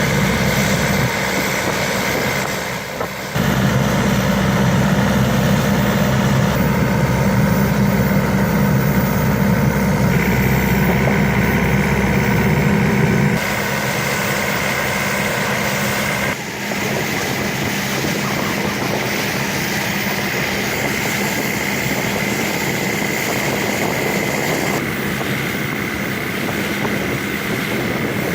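A boat engine running steadily, heard from on board. Its sound changes abruptly a few times, dropping in loudness about halfway through.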